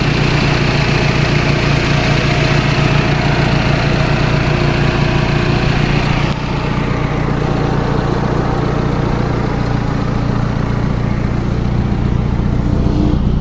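The engine of a 1994 Daihatsu Classy idling steadily with the bonnet open, a smooth, even idle. About six seconds in it turns a little quieter and duller.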